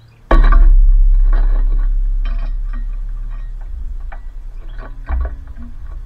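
A tufted titmouse landing on the metal feeder perch right by the microphone with a loud thump, followed by a low rumble that slowly fades. Short irregular clicks and taps follow as the bird moves and pecks on the perch and mount, with a smaller knock about five seconds in.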